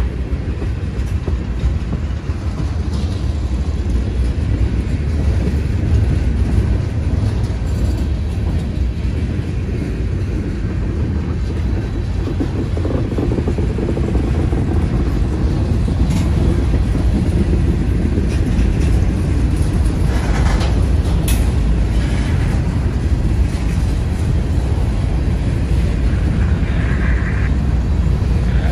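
Freight train rolling by, a steady heavy rumble of locomotives and rail cars on the track, with a few sharp clanks about two-thirds of the way through.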